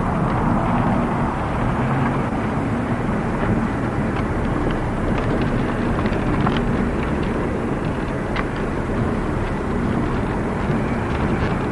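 Steady noise of a car driving, heard from inside the car: engine hum under an even rush of road and wind noise.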